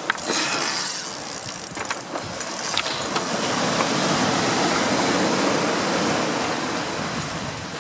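Waves breaking and washing back over a beach of round stones, the surf noise swelling up in the middle. There is a short click right at the start.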